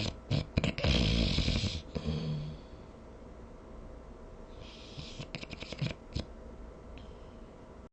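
A person snoring in their sleep. One loud snore starts a little under a second in and lasts about a second. A quieter snore with a run of quick fluttering clicks follows around five seconds in.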